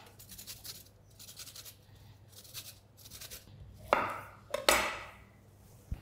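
A lemon rubbed across a metal hand grater in quick, repeated rasping strokes as it is zested. About four seconds in, a knife cuts through the lemon onto a wooden cutting board with two loud, sharp strokes.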